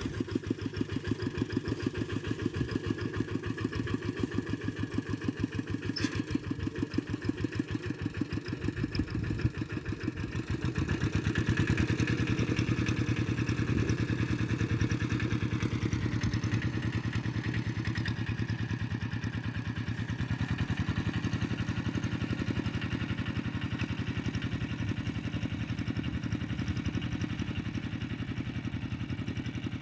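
Tractor engine running with a steady pulsing beat as it pulls a plough, working louder and harder from about ten seconds in.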